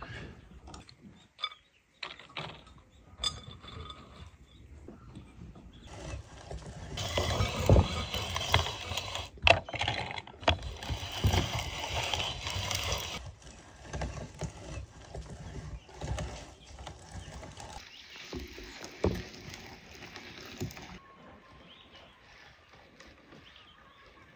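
Hand-cranked metal mincer grinding walnuts: a steady crunching and rattling as the crank turns, loudest a few seconds in and softer near the end.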